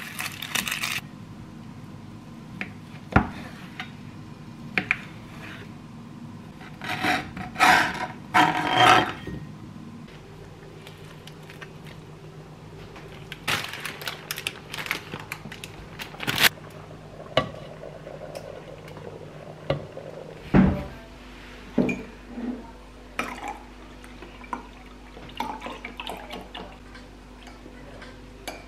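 Home cooking sounds in short, separate bursts: crinkling plastic packaging, clicks and knocks of utensils on pans, and leaves dropping into a wok. A steady low hum comes in about two-thirds of the way through.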